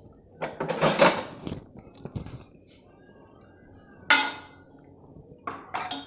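Pressure cooker and metal cookware clattering: a scraping rattle about half a second in, a sharp ringing clank about four seconds in, and a few lighter knocks near the end.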